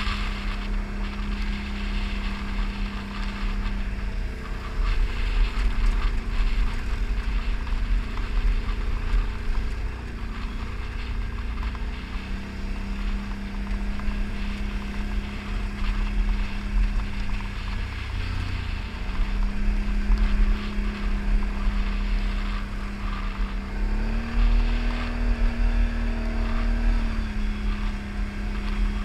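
ATV engine running under way at a steady note that dips and rises a few times with the throttle, highest for a few seconds near the end, over a constant low rumble.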